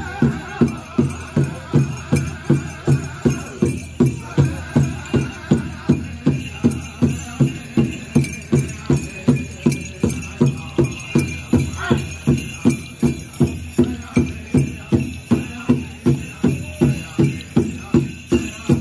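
Powwow drum group beating a large drum in a steady pulse, about two beats a second, with singing over it and a continuous jingling of bells.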